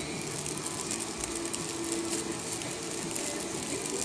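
Campfire crackling, with faint irregular ticks and pops.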